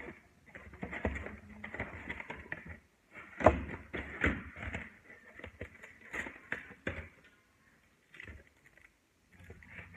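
A Pokémon card pack being torn open by hand: the wrapper crinkling and crackling in irregular bursts, with a sharp crackle about three and a half seconds in and a pause near the end.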